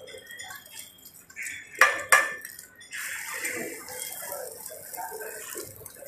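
A metal spatula strikes a flat iron tawa twice in quick succession about two seconds in. Then a steady hiss of oil as parathas fry on the griddle, with light scraping as they are turned and lifted.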